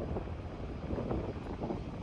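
Jet engine noise from a departing Boeing 787-9 on its take-off run, heard from far off as a steady, low, fluttering rumble mixed with wind buffeting the microphone.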